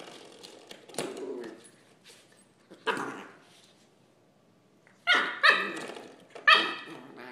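Brittany puppy barking in separate high-pitched barks: single barks about one and three seconds in, then two louder bursts of barks near the end.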